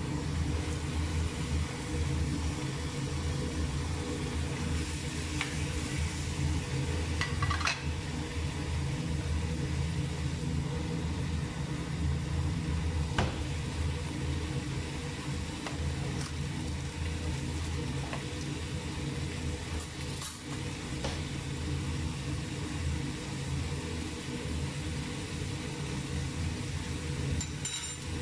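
Meat frying and sizzling in a metal pot while a wooden spatula stirs it, knocking against the pot a few times. A steady low hum runs underneath.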